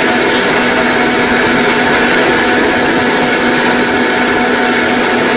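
Small single-unit wheat flour milling machine running steadily: a loud, even mechanical whir with a constant hum through it.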